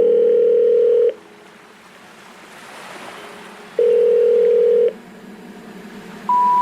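Two steady electronic tones, each held about a second, the second coming about four seconds after the first, with faint surf-like noise between them; a short rising step of beeps starts near the end.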